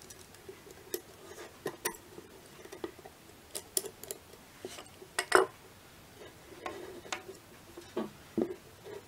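Small steel pistol parts and a small screwdriver clicking and clinking as a Wildey pistol's barrel rib is fitted over its gas regulator detent, a scatter of separate light taps with the loudest clink about five seconds in.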